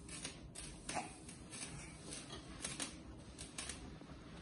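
Faint, scattered rustles and light clicks from a toddler wriggling and climbing in a fabric-covered baby bouncer seat.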